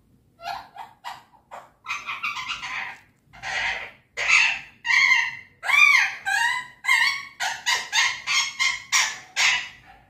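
Alexandrine parakeet giving a quick run of loud, harsh squawks and chattering calls, some bending up and down in pitch, starting about half a second in.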